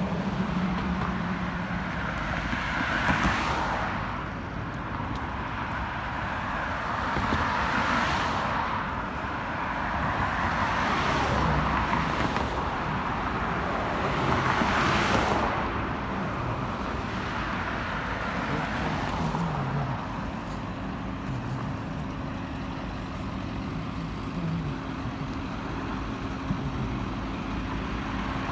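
Road traffic: a string of vehicles passing one after another, each swelling and fading over a few seconds over a steady background noise.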